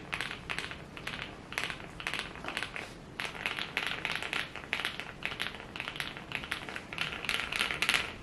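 Typing on a mechanical keyboard: a fast, uneven patter of keystroke clicks, several a second, with a bright clacky sound rather than a deep thud.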